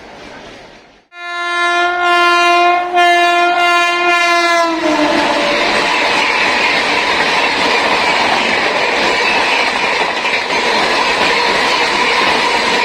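A passing Indian Railways express locomotive sounds a long horn blast in a few short pulses, starting suddenly about a second in. The horn drops in pitch as the locomotive goes by, then gives way to the loud, steady rush of the train's coaches and wheels passing at speed.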